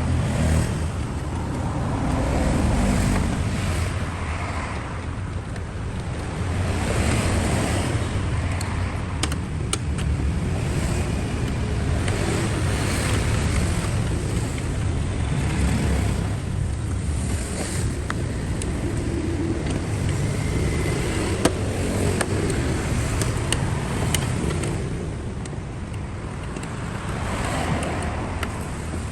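Toyota Prius running, a steady low noise that swells and eases every few seconds.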